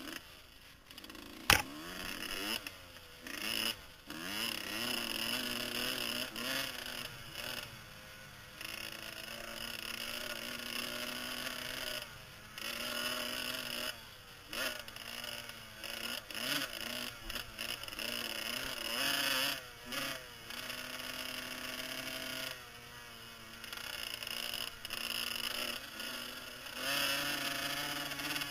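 Kawasaki KX125 two-stroke motocross bike being ridden, its engine revving up and easing off again and again, with short drops as the throttle is shut, heard from a helmet camera. A single sharp knock about a second and a half in.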